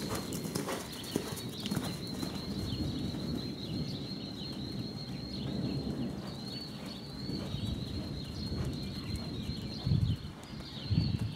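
A bay paint mare loping on soft arena sand: a continuous run of dull, muffled hoofbeats, with louder thuds about ten seconds in. A steady high-pitched whine with faint chirps runs over it.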